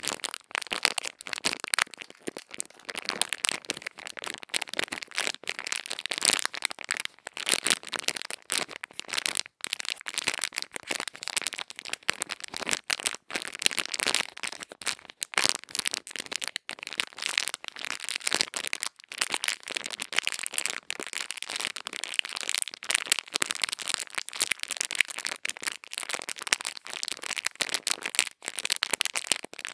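Dense, crisp crackling and scratching close to the microphone: ASMR ear-cleaning tools rubbing and scraping in a microphone's ear, continuous with fast irregular clicks.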